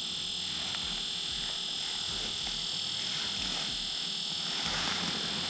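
A steady high-pitched whine made of several overlapping unchanging tones, with faint low rustling beneath it.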